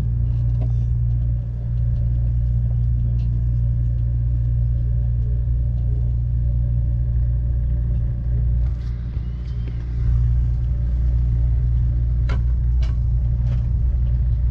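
Steady low rumble of a moving passenger train, heard from on board. A few sharp clicks come near the end.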